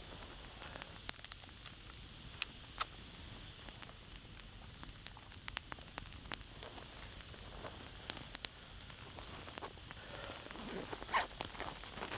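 Wood campfire crackling, with sharp pops at irregular intervals over a low steady hiss. Softer handling noise joins near the end.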